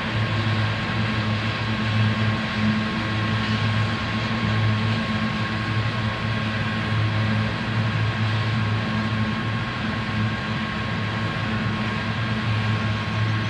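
Coal train hopper cars rolling past with a steady rumble that swells and dips every couple of seconds, over the continuous ringing of a grade-crossing bell.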